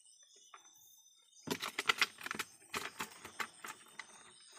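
A quick, uneven run of sharp clicks and taps on a plastic catch container starting about a second and a half in, as a freshly caught freshwater shrimp is put in.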